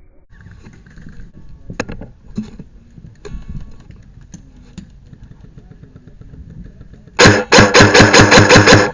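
Faint knocks and handling noise, then about seven seconds in a loud, rapid full-auto burst from an electric airsoft gun, about seven shots a second for a second and a half.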